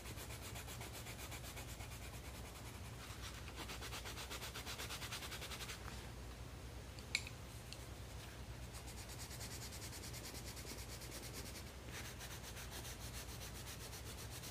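Colored pencils scribbling rapidly back and forth on toothy mixed-media sketchbook paper: a faint, steady, dry scratching. A single brief click comes about seven seconds in.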